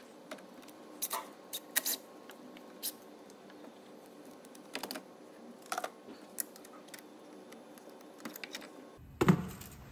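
Scattered light clicks and knocks of hands working an intake hose and its spring clip off an engine, with a louder knock about nine seconds in.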